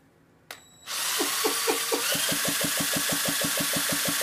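Cordless drill spinning a Yamaha QT50's 50 cc two-stroke engine over by its crankshaft, spark plug out, starting about a second in. A rhythmic knocking speeds up, then holds at about nine a second. The engine turns freely: it is not locked up.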